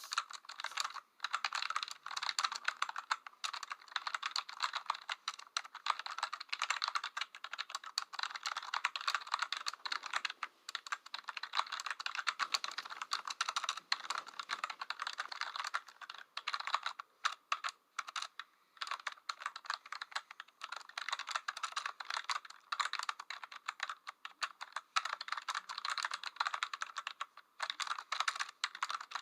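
Typing on a computer keyboard: fast, dense clicking of keys with a few short pauses.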